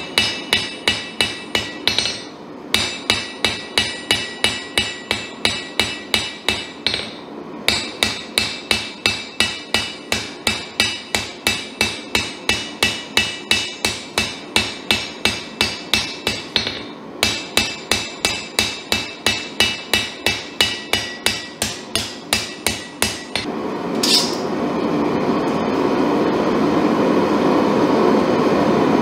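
Hand hammer forging a red-hot Damascus steel knife blade on an anvil: about three blows a second in runs broken by brief pauses, each blow ringing. The blows stop a little before the end, followed by a single metallic clank and a steady rushing noise.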